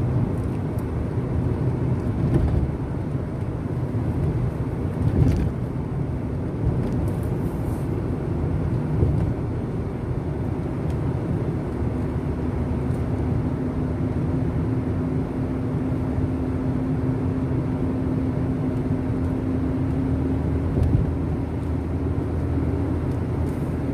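A road vehicle running steadily, a continuous low rumble of engine and road noise, with a steady hum joining about halfway through.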